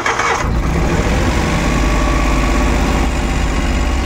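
Suzuki Every DA64V's three-cylinder engine starting: a brief burst of cranking, then it catches about half a second in and settles into a steady, heavily vibrating rough idle. It is misfiring on the second cylinder.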